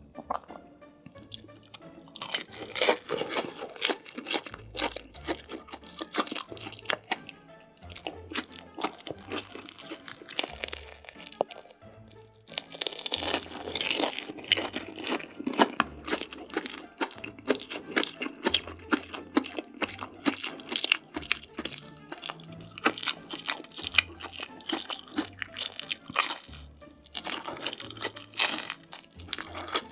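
Close-miked crunching and chewing of crisp food, many sharp crunchy bites in quick succession with short pauses, over background music with a steady low beat.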